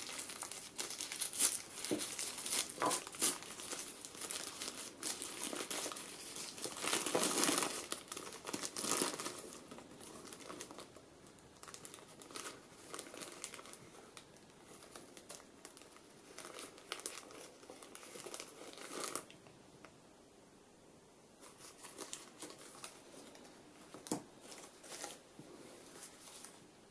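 A crinkly plastic wrapper being unfolded and peeled off a small wrapped cake by hand, crackling and rustling. The crinkling is densest and loudest about a quarter of the way in, then thins to occasional rustles and a single tick in the last third.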